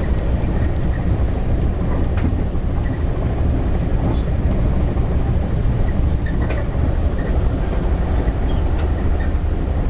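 Steady low rumble of a moving passenger train heard from inside the coach, with a few faint clicks from the wheels on the rails.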